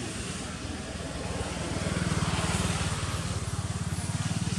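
A motor vehicle's engine running, a low steady throb that grows louder about a second and a half in.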